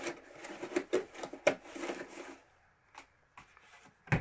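Handling noise: rustling packaging with many small clicks and knocks for about two and a half seconds, a few isolated clicks, then a single loud thump near the end.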